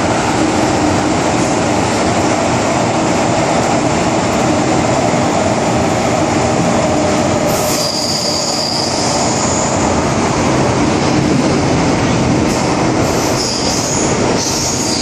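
MTR M-Train heard from inside the car while running: a steady, loud rumble of wheels on track. High wheel squeals come in about halfway through and again near the end.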